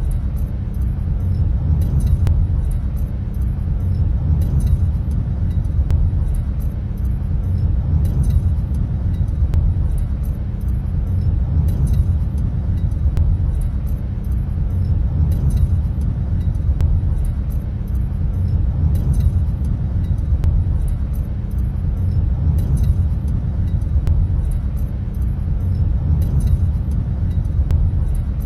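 Steady low rumble of a vehicle driving through a road tunnel: road and engine noise, with faint high ticks recurring every few seconds.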